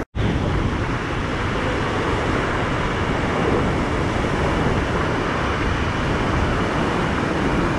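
Whitewater rapids of the Merced River rushing over rocks: a loud, steady wash of water noise. A split-second gap right at the start.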